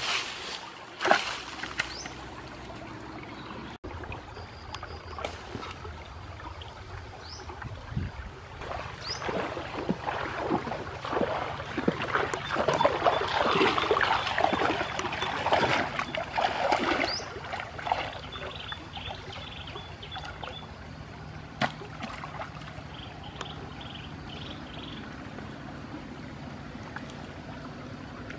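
Shallow stream water splashing and sloshing as someone wades and jabs a wooden pole into it, busiest in the middle stretch, over a steady trickle of running water. A few short high chirps come through now and then.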